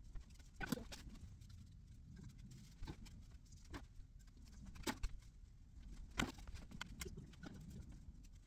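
Quiet, scattered knocks and clicks at irregular intervals from ornaments being handled and hung on an artificial Christmas tree.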